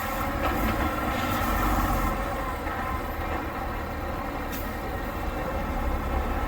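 Heavy truck's diesel engine running steadily with a low rumble, with a short high hiss about four and a half seconds in.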